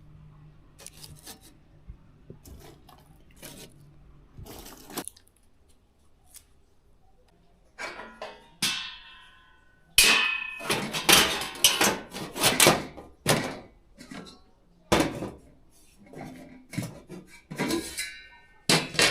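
Kitchen clatter of metal pots and a wood-burning stove being handled: scattered light knocks at first, then a busy run of clanks and knocks, some briefly ringing, loudest in the second half. A low steady hum sits under the first few seconds.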